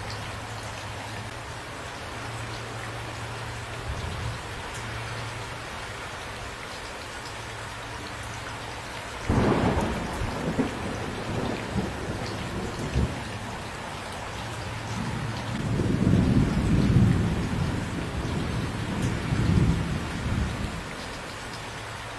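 Steady rain falling, with a sudden thunderclap about nine seconds in that rolls on into rumbling. A second, longer roll of thunder swells and fades a few seconds later.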